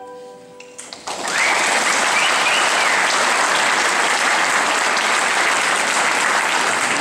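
Audience and performers applauding after a piece ends. The clapping breaks out about a second in and then holds steady.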